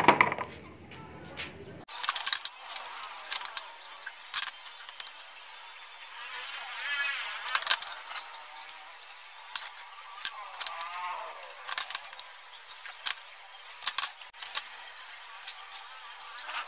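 Scattered light knocks and taps of a steel square and pencil against a plywood board during marking out.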